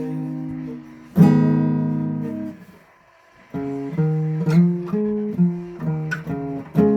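Acoustic guitar: a chord strummed about a second in rings and fades out. After a short pause comes a run of single plucked notes, changing every half second or so.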